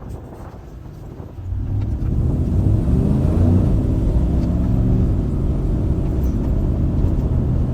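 Truck engine under way: quieter at first, then louder from about a second and a half in, with a rising engine note around three seconds in that then settles to a steady run.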